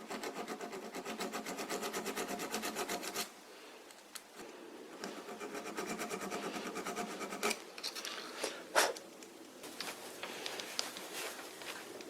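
Needle file rasping over the damaged threads of a lathe spindle in quick back-and-forth strokes: a run of about three seconds, a pause, then a second run, followed by a few sharp metallic clicks.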